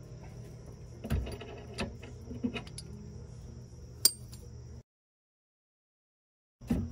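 Steel suspension hardware (leaf-spring shackles and bolts) being handled: a few light knocks, then one sharp metallic clink about four seconds in, over a steady chirring of insects. The sound then cuts out to dead silence for about two seconds.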